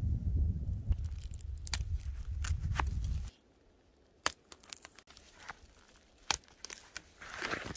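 Footsteps through forest undergrowth: scattered sharp snaps and crackles of twigs and dry leaves. A low rumble under the first three seconds cuts off suddenly.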